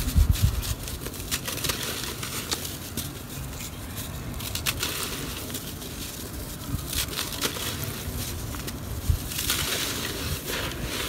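A block of dry red dirt crushed and crumbled between the fingers into a terracotta clay pot: continuous gritty crunching with many fine crackles as the packed grains break apart and fall.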